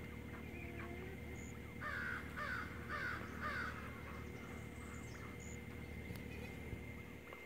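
A bird calls four times in quick succession, the notes about half a second apart.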